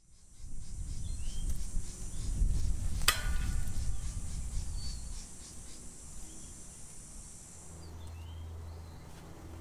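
Woodland ambience: a steady high buzz of insects with a few short bird chirps over a low rumble that fades out by about five seconds. A single sharp click with a brief ring comes about three seconds in, and a low steady hum starts near the end.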